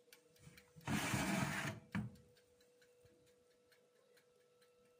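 A metal baking tray scraping out of the oven for about a second, then a sharp click; after that a fast, regular ticking carries on faintly over a steady low hum.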